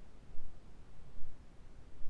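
Deep, low-pitched white noise for baby sleep, heavy in the bass like brown noise, with a soft swell that comes back regularly a little more than once a second.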